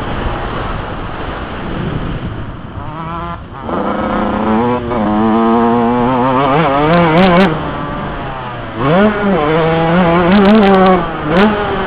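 Yamaha YZ125 two-stroke single-cylinder motocross engine under hard riding, heard from the rider's helmet, its pitch rising and falling as the throttle is worked and gears change. The revs drop about three and a half seconds in and again near nine seconds, then climb back each time, over steady wind and track noise.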